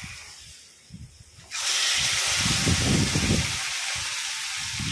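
Spice-rubbed fish frying in hot oil in a kadai: a faint hiss that jumps suddenly to a loud, steady sizzle about a second and a half in, with irregular crackling underneath.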